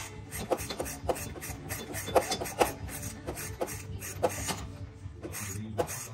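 Irregular sharp clicks and scraping of hand tools on metal, a few a second, as spark plugs are swapped on a Kawasaki V-twin mower engine, over a low steady hum.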